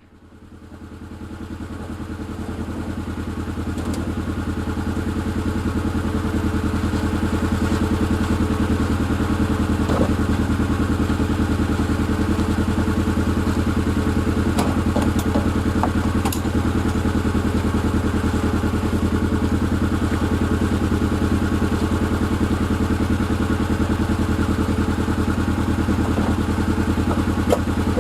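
Kawasaki Mule Pro FX1000 side-by-side engine running at a steady speed, fading in over the first few seconds and then holding even, with a few light clatters.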